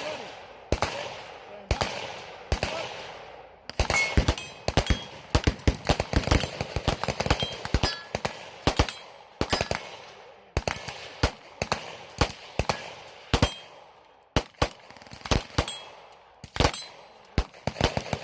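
Gunfire from several guns: dozens of shots, some single and some in quick strings of a few shots, each followed by a ringing echo that dies away.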